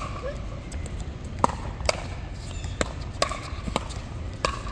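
A pickleball rally: sharp pocks of paddles striking the plastic ball, with the ball bouncing on the hard court, about seven in all at irregular intervals of half a second to a second.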